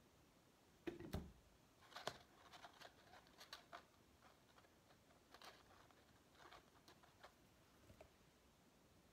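Faint handling of a paper craft piece: a soft knock about a second in, then light scattered taps and rustles as glue is dabbed with a wooden stick onto the paper headband's folded tabs and pressed down.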